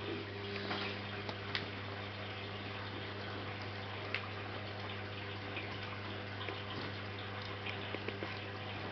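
Steady background hiss with a low hum, and a few faint clicks and taps.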